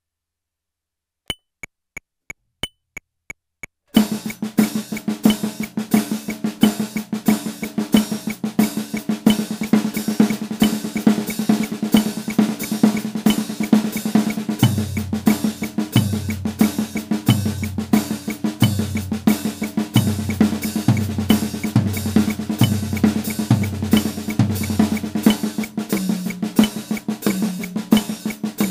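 Drum kit played as a continuous stream of paradiddle strokes spread around the snare, toms and cymbals, after a short count-in of about seven even clicks a second in. From about halfway, low drum strokes fall in about every second and a quarter, each dropping in pitch.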